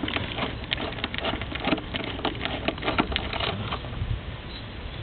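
A quick run of small clicks and rattles, like parts and tools being handled, for about three and a half seconds. Then it stops, leaving a steady low hum.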